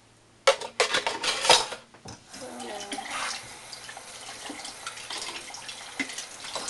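Dishes and cutlery clattering in a kitchen sink for about a second and a half, then a tap running steadily as utensils are rinsed under it, with occasional small clinks.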